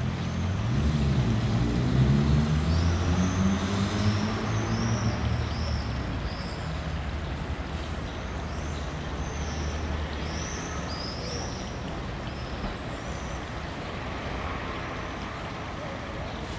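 A vehicle pulling away, its low motor tone rising in pitch over the first few seconds and then fading into a steady rumble. Small birds chirp over it again and again.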